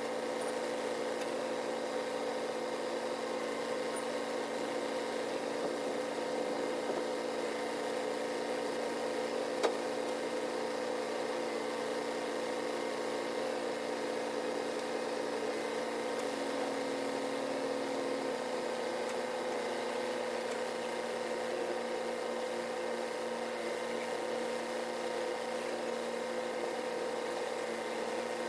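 Heavy construction machine's engine running steadily with a constant hum, its pitch shifting slightly a little past the middle. One sharp click about ten seconds in.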